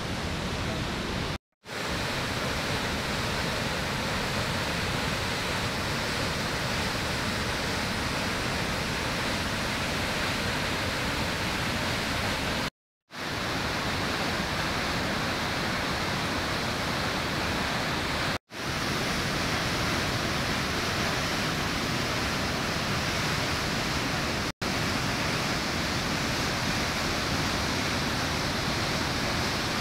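Heavy white water of Davis Falls (Patale Chhango) rushing through the rock gorge and plunging into the chasm, a steady, unbroken rush of water. The sound cuts out for a moment four times where the clips are joined.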